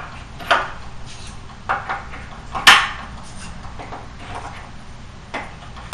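Number cards clicking and tapping against a pegboard as they are hung on its pegs one after another: several sharp irregular clicks, the loudest a little under three seconds in.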